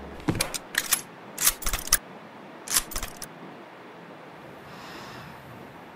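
Sharp metallic clicks and clacks of a handgun being handled, a handful of them in quick clusters over the first three seconds, then only a faint hiss.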